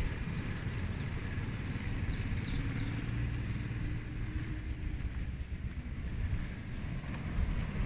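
Wind buffeting the microphone, a steady low rumble, on a rainy seaside morning. A few short, high, faint chirps sound in the first three seconds.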